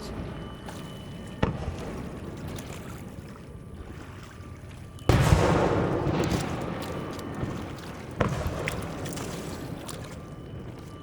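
Aerial firework shells bursting: a smaller bang about a second and a half in, the loudest about five seconds in and another about eight seconds in, each trailing off in a long rumbling echo.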